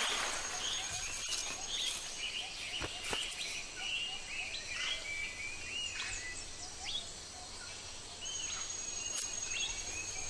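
Forest birds chirping in many short, quick calls over a steady background hiss, with a thin high insect whine at the start and again near the end.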